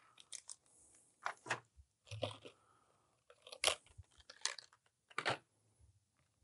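Clear plastic packaging and the plastic box crackling and clacking as gloved hands lift sterile parts out of it, in a handful of short, separate crackles spread over several seconds.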